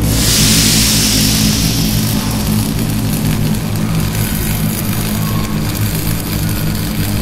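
Produced intro soundtrack: a steady low drone with a loud whoosh at the start that fades over about two seconds.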